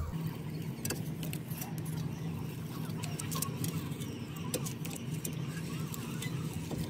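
Brake caliper piston wind-back tool being screwed in against the caliper piston: scattered small metallic clicks and ticks as the threaded spindle turns, over a steady low hum. It is pushing the worn-pad piston back into the caliper to make room for new pads.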